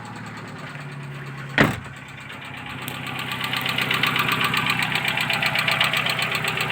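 Chevrolet Cruze engine running with a rapid, even knocking that grows louder about three seconds in, after a single sharp thump about a second and a half in. The owner can't place the knock: worn hydraulic lifters or a piston with a chipped skirt are his guesses.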